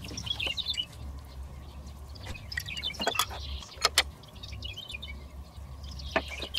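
A few sharp clinks and knocks from a spoon and glass ketchup jar, the loudest about three and four seconds in, over small birds chirping on and off and a low steady hum.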